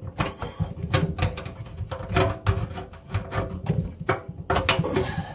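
Irregular clicks, knocks and scrapes of a garbage disposal's plastic housing and metal mounting ring being handled and turned against the sink's mounting assembly, several sharp knocks a second.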